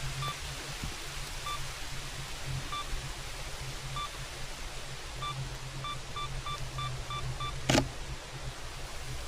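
Camera self-timer counting down: short high beeps about once a second, speeding up to about three a second near the end, then the shutter clicking once about three-quarters of the way in.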